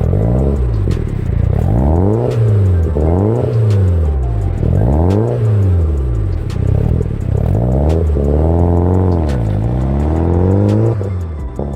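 Toyota MR2 GT-S (SW20) turbo four-cylinder exhaust through a Fujitsubo RM01A aftermarket muffler, the engine revved up and let fall about six times, the last rev held longer. It settles back to a steady idle near the end.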